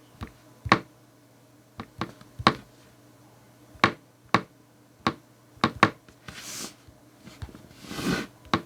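Fingertip taps on a smartphone touchscreen, about a dozen sharp, irregularly spaced taps, with two short hissy noises about six and eight seconds in.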